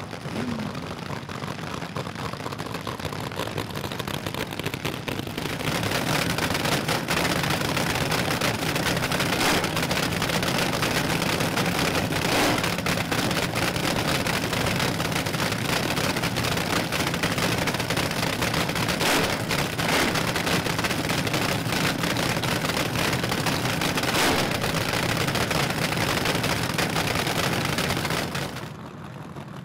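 Nostalgia front-engine Top Fuel dragster engines cackling at idle: a loud, dense crackling rumble with scattered sharp pops. It builds over the first several seconds and cuts off sharply near the end.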